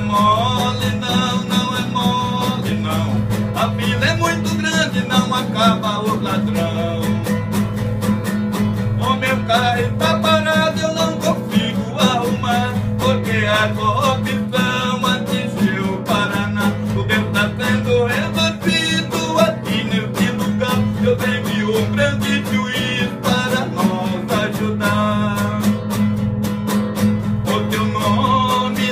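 A man singing to his own strummed acoustic guitar, the guitar keeping a steady, quick strumming rhythm under the voice.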